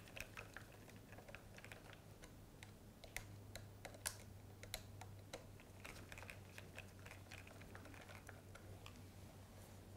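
Faint, irregular small clicks and ticks of a screwdriver and metal link being worked on a power supply module's terminals, over a low steady hum.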